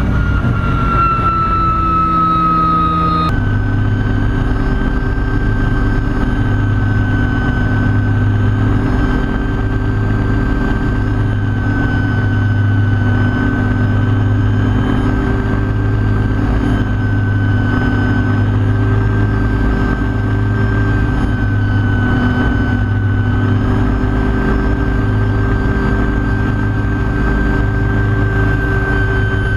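MD500C helicopter's turbine engine and rotor heard from inside the cockpit: a steady high turbine whine over a low rotor drone. The whine dips slightly in pitch at first, then changes abruptly about three seconds in and runs steady.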